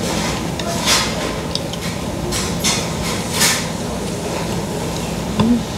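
Spoon and chopsticks clinking and tapping against ceramic bowls and dishes while eating: a handful of sharp, irregular knocks over a steady background rumble.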